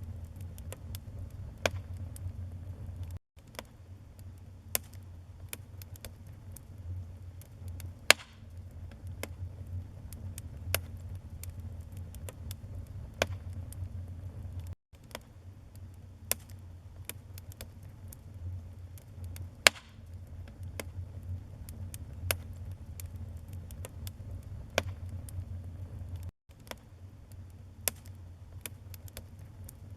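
Wood fire crackling in a fireplace: scattered sharp pops and snaps over a steady low rumble, with two much louder pops, about a quarter and two thirds of the way through. The sound cuts out for an instant three times.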